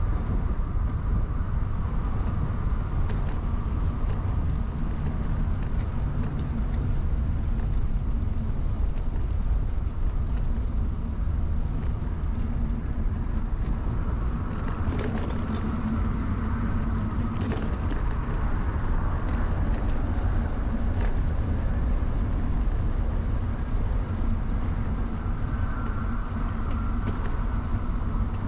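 Riding noise of an early-1970s Peugeot UJ-10 ten-speed bicycle on the move, picked up by a clamp-mounted action camera: a steady rumble of wind and rolling tyres, with a faint hum that swells around the middle and a few scattered clicks and rattles.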